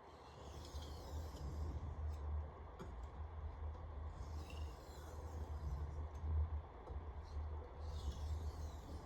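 Steel chef knife edge stroked across a wet whetstone in light edge-leading deburring strokes: soft scraping in three spells, over a steady low rumble.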